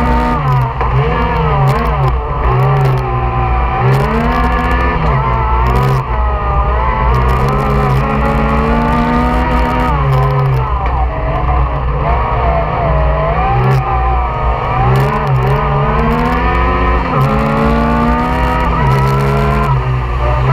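Yamaha YXZ 1000 UTV's three-cylinder engine driven hard, loud, its pitch climbing and dropping back again and again as it is revved up through the gears and lifted off.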